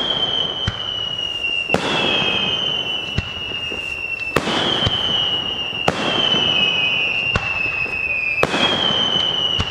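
Aerial fireworks bursting in a steady string of sharp bangs, about one a second, each trailed by a high whistle that slowly falls in pitch.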